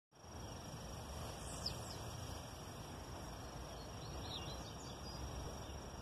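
Blue-black grassquit (tiziu) giving a short, high, downward-sweeping song note twice, faint, over a steady high-pitched insect trill and a low background rumble.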